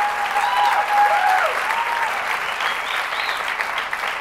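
Audience applauding, with a few voices cheering in the first two seconds.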